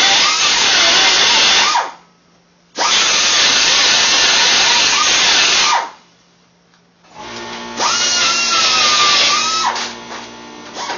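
Two long bursts of loud, even, hissing power-tool noise on the steel header, each stopping abruptly, then guitar music comes in about seven seconds in.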